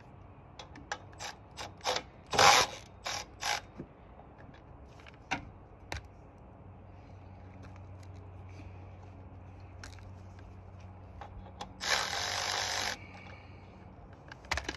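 Cordless ratchet loosening fasteners during a mini bike teardown. It runs in a string of short zips and clicks over the first few seconds, then in one longer run of about a second near the end.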